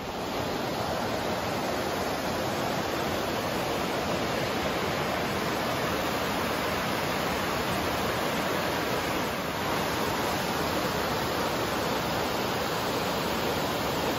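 Steady rushing of river water pouring over a low dam and through shallow rapids.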